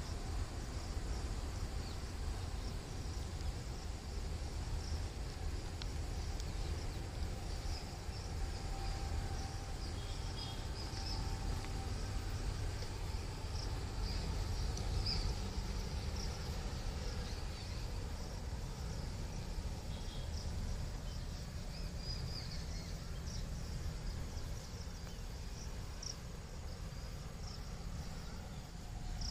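Insects chirping steadily in a high, shimmering band, over a constant low rumble.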